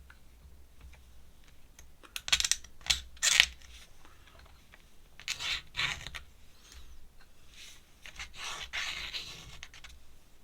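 Ink pen scratching across paper in short drawing strokes: a few quick strokes, then a longer run of strokes near the end.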